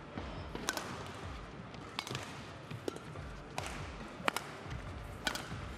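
Badminton rally: rackets striking the shuttlecock about five times, each a sharp crack, roughly a second or so apart, over a low murmur from the hall.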